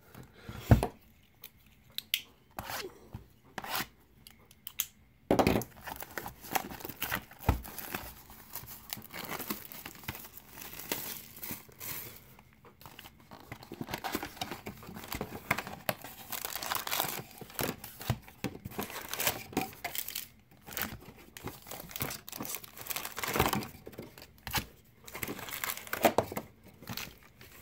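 Plastic shrink wrap being torn off a cardboard trading-card hobby box and crinkled, then the box opened and its foil packs handled. There are a few scattered taps at first; from about five seconds in, the tearing and crinkling run on thickly.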